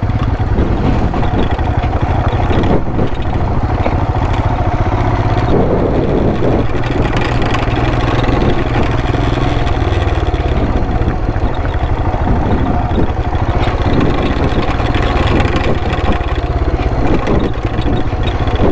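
Royal Enfield Himalayan's 411 cc single-cylinder engine running as the motorcycle rides a rocky dirt trail, with frequent knocks from the bike bouncing over the rocks.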